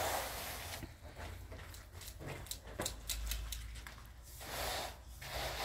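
Plaster hand floats rubbing over a rendered cement wall, a rasping scrub. It fades out about a second in, leaving a run of light ticks, and comes back about four and a half seconds in.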